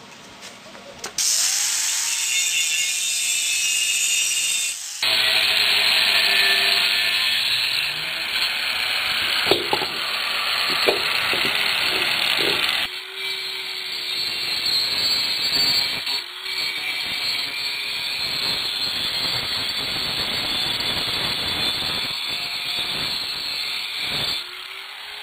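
Angle grinder running against the steel of an empty propane tank, a steady loud grinding hiss. The sound is made of several short takes that cut in and out abruptly.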